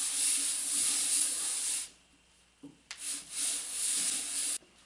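Cast-iron base of a Bridgeport milling vise being lapped by hand on 400-grit sandpaper: a gritty scraping rub, in two long runs with a pause of about a second between them. The scraping is wearing down high spots and burrs to flatten the base.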